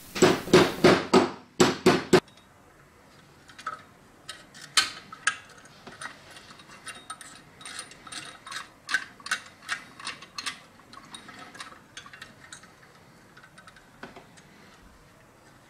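A rapid series of light hammer taps for about two seconds, peening a new washer down on the pin that holds the crank handle of an antique butter churn. Then quiet, irregular clicks and ticks of metal parts as the crank handle and the churn's gear mechanism are handled.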